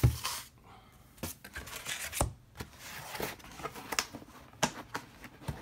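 Cardboard boxes being handled and moved about: a loud brush close to the microphone right at the start, then scattered rustles, taps and clicks.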